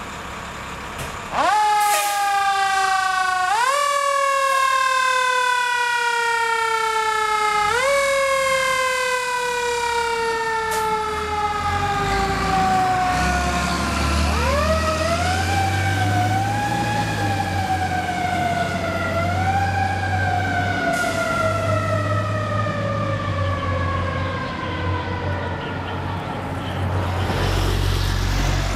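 Fire engine siren on a 1993 KME Renegade pumper, starting about a second in: it rises quickly and then slides slowly down in pitch three times, then wavers up and down. From about midway, the truck's Cummins 6CTA 8.3 diesel is heard running low under the siren as it pulls past.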